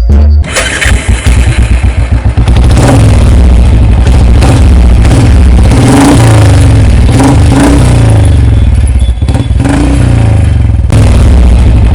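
Electronic dance music with a heavy, distorted bass line, kicking in about half a second in after a stuttering build and then running loud and steady, with bass notes stepping between pitches in repeating phrases.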